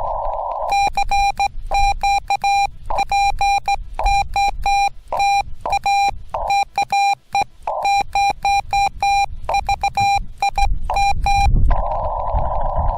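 Morse code sent by hand on a straight key, heard as the Yaesu FT-891's CW sidetone: a single steady tone keyed on and off in dots and dashes for about eleven seconds. Before and after the sending, and in a few gaps, the receiver's band-limited hiss is heard instead, muted while the key is down.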